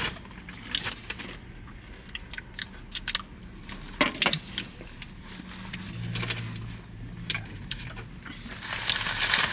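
Takeout food containers and bag being handled, with scattered clicks, crackles and rustling. A low hum runs underneath for a couple of seconds midway.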